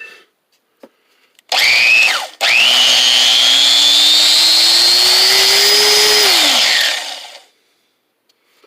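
Drill Master 4.5-inch angle grinder run with no wheel fitted: a short burst about a second and a half in, then switched on again for about four seconds, its high whine climbing steadily in pitch as it gets up to speed, then falling in pitch as it winds down after being switched off.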